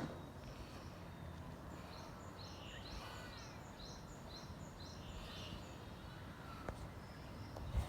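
Outdoor ambience with a bird calling in short, repeated high notes about twice a second, and one brief arching call about three seconds in.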